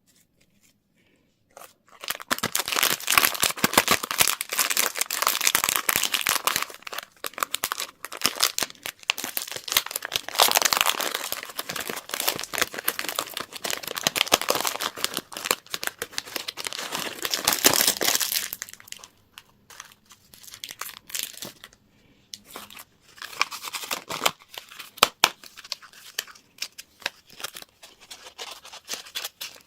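Candy and toy packaging wrappers crinkling and tearing as they are unwrapped. It starts about two seconds in as a dense, continuous crackle, then thins to scattered crinkles and clicks for the last ten seconds or so.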